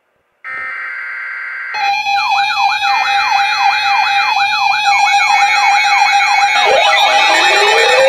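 Several weather alert radios sounding their alarms together. After a brief buzzy tone, electronic sirens start about two seconds in, sweeping up and down about twice a second over a steady tone. More alarm tones join and the sound grows louder toward the end.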